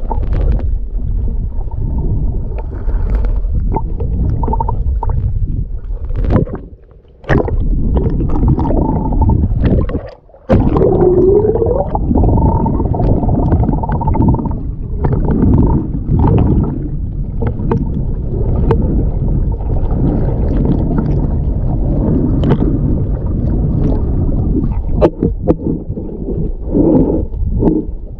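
Loud, muffled rumble and gurgle of water moving around a handheld camera held just under the sea surface. It drops out briefly twice, about seven and ten seconds in.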